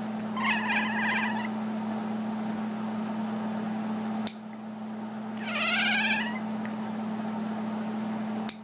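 A cat meowing twice: a level call about half a second in, then a second call about five seconds in that rises in pitch, with a steady low hum behind.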